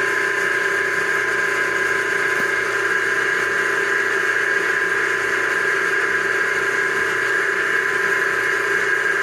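Homemade bench drill press running steadily at constant speed, its motor giving a steady whine.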